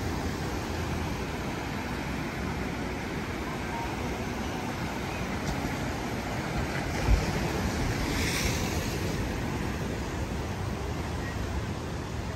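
Ocean surf breaking and washing over rocks, a steady rush of water with a brief low thump about seven seconds in and a surge of spray hiss just after.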